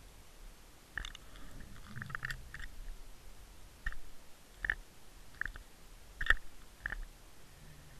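Irregular sharp clicks and light knocks, the loudest about six seconds in, picked up inside an underwater camera's housing as it hangs and spins on a fishing line, with a short low rumble around two seconds in.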